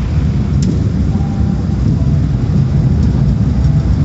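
Tunnel car wash machinery heard from inside the car's cabin: a loud, steady low rumble.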